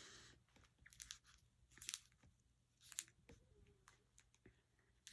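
Near silence, with a few faint scattered clicks and rustles of things being handled.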